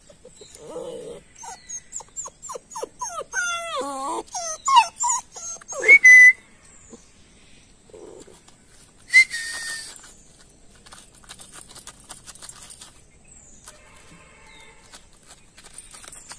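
A young dog's high whining cries in a quick run of short, falling squeals, followed by two sharp whistle-like notes, about six and nine seconds in.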